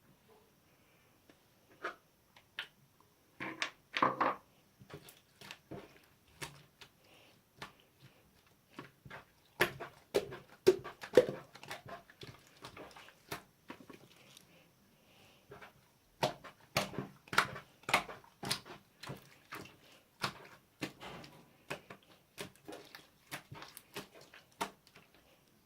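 Clear slime mixed with rhinestones being squeezed and poked by hand, making irregular sticky clicks and small air-bubble pops that start about two seconds in and come in busy clusters.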